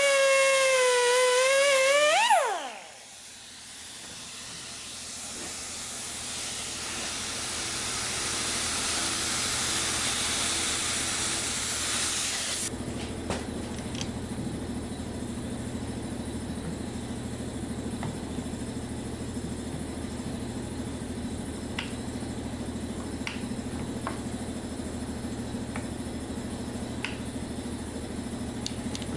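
A high-speed air-powered cutting tool whining as it cuts into the trigger lock, swooping up and then dying away about two and a half seconds in. Then a steady hiss builds slowly for about ten seconds and cuts off suddenly, leaving a low steady hum with a few faint clicks.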